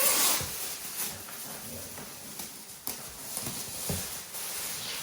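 Plastic wrapping rustling and crinkling as it is pulled off a small chair, loudest at the start, with a few light knocks from handling.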